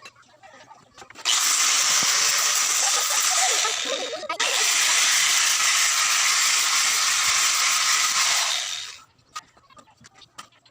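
A steady hiss in two long stretches: it starts about a second in, breaks off briefly about four seconds in, then runs on and stops near the end.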